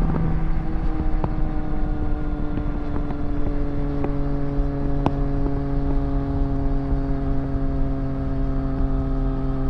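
2024 Triumph Street Triple RS 765 cc inline-triple running through a Zard titanium exhaust at road speed, its note easing gradually lower as the bike slows from about 70 to 60 mph, over a heavy rumble of wind on the microphone.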